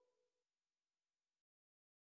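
Silence: the faint dying tail of a musical jingle's last note, then dead digital silence.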